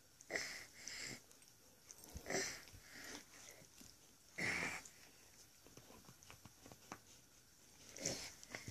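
A dog sniffing and huffing in short, breathy bursts as it mouths and tugs at a toy, about six of them at irregular intervals.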